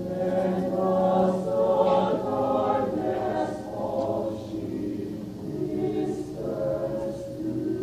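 Mixed-voice choir singing a cappella, holding sustained chords that swell in the first couple of seconds and then settle softer.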